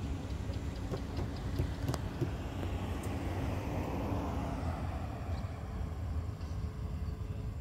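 A van passing close by on the road, its tyre and engine noise swelling to a peak near the middle and fading, over a steady low rumble.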